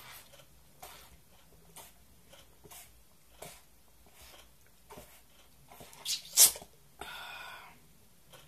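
Someone swallowing gulps of a drink from a small plastic bottle, a faint gulp about once a second, then a sharp, loud breath out about six seconds in and a short breathy exhale after it.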